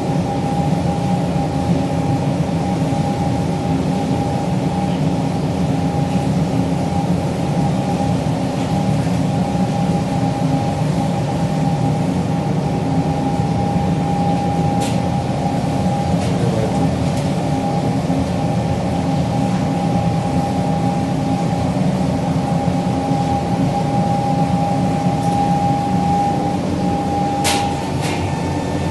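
Paint booth exhaust and supply-air ventilation fans running steadily: a loud, even rush of air with a steady whine over it. Two brief clicks, one about halfway through and one near the end.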